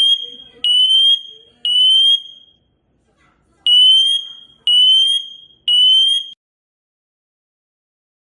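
SITERWELL GS509A photoelectric smoke alarm sounding its high-pitched beep in the three-beep pattern: three half-second beeps about a second apart, a pause, then three more. Each beep rises slightly in pitch.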